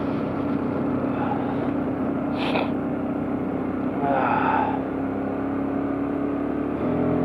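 Motorcycle engine running steadily while riding at cruising speed, with wind and road noise on the rider's camera. The engine note shifts slightly near the end.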